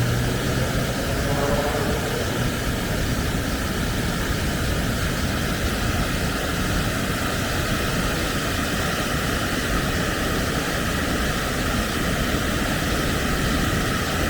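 Waterfall swollen with storm runoff, roaring with a steady, unbroken rush of water.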